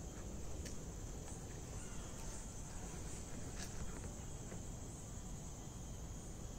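Crickets chirring in a steady high-pitched drone, over a low rumble, with two faint clicks.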